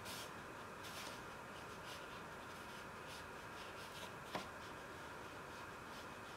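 Faint, soft swishes of a paintbrush stroking watercolour paper, a handful of short strokes about a second apart, with one light click about four seconds in.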